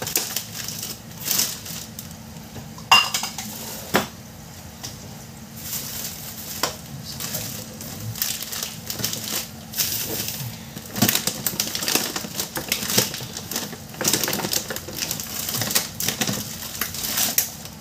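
Minced garlic frying in hot oil in a stainless-steel pot: irregular crackles and pops, with occasional sharper clicks of utensils against metal.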